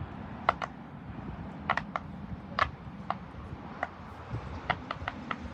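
Bubbles of a silicone pop-it fidget toy being pressed, giving about a dozen short, sharp clicks at irregular spacing over a steady low background rumble.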